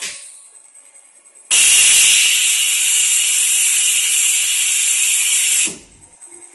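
Compressed air hissing loudly from a pulse-heat bonding machine for about four seconds, starting and stopping abruptly, after a short click at the start.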